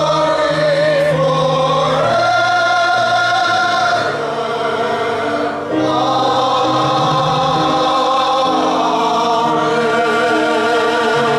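Voices singing a hymn together in long held notes that move step by step, with a wide vibrato on a held note near the end.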